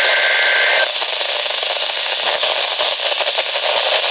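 NOAA weather radio sending the end of a SAME digital alert header, a two-tone data screech that cuts off a little under a second in. Crackling radio static and hiss follow, with scattered clicks.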